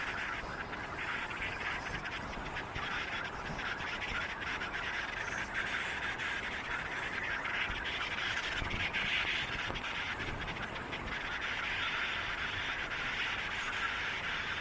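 A dense, continuous chorus of many birds chattering at once, over a low rumble of wind or distant traffic.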